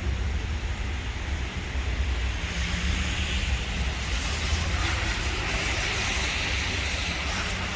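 Wind buffeting the microphone with a constant low rumble, over the hiss of traffic on a wet, slushy street that swells about a third of the way in.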